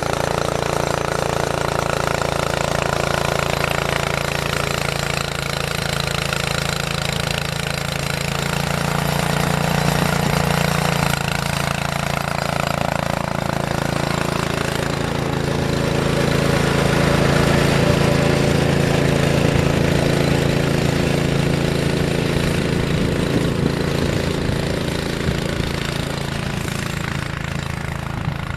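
An engine running steadily, getting a little louder partway through and easing off again toward the end.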